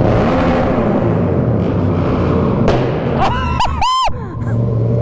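Yamaha MT-07 parallel-twin with an aftermarket M4 exhaust revved hard again and again, a rev bomb, echoing off the concrete of a parking garage. About three and a half seconds in, a brief high-pitched squeal cuts across the engine noise.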